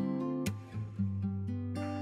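Background music: strummed acoustic guitar chords.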